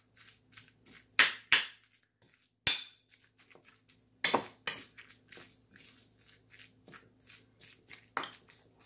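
Metal fork scraping and clinking against a ceramic bowl while mashing and stirring chunky tuna salad, in irregular strokes with a few louder clinks.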